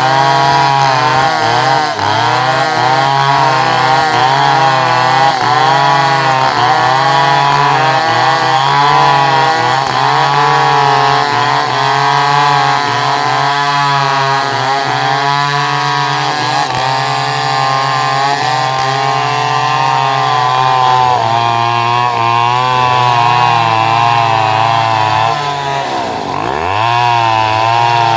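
Two-stroke chainsaw running at high revs, its pitch wavering up and down throughout. Near the end the engine speed drops sharply and then climbs back.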